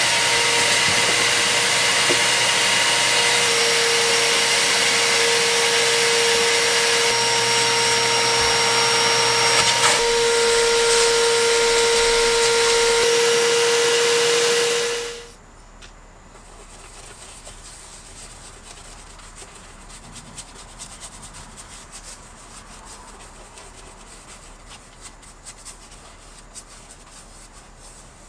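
Vacuum cleaner running steadily with a high whine as its nozzle works over car carpet and upholstery, shutting off abruptly about fifteen seconds in. Afterward comes quieter, irregular rubbing of a soft detailing brush on the steering wheel.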